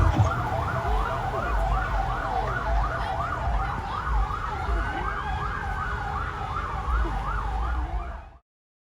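Emergency vehicle siren in a fast yelp, sweeping up and down about three times a second, with a slower wailing tone underneath and a low rumble. It cuts off suddenly near the end.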